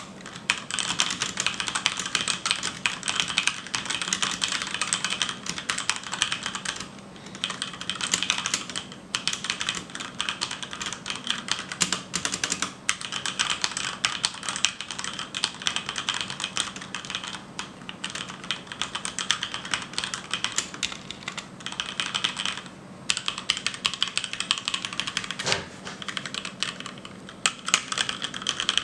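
Fast typing on a HyperX Alloy Origins mechanical keyboard with HyperX Red linear switches: a dense, continuous clatter of key presses, broken by a few brief pauses.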